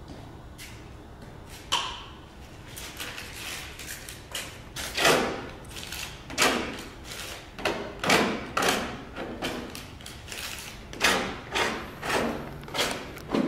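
A flat tool being scraped and dragged through wet paint on a stretched canvas, in a series of short, irregular strokes that come more often in the second half, with one sharper knock about two seconds in.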